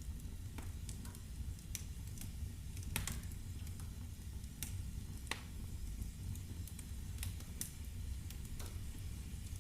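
Wood fire burning in a fireplace, crackling with scattered sharp pops over a low steady rumble; the sharpest pop comes about three seconds in.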